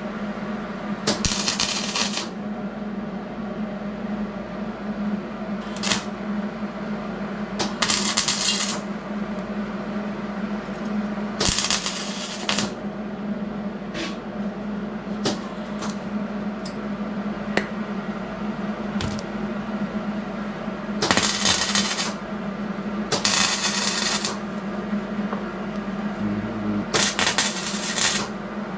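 Hobart Handler 140 wire-feed welder arc crackling in short bursts of about a second each, several seconds apart, as tack welds are laid on very thin sheet steel at the lowest voltage setting. A steady hum runs underneath.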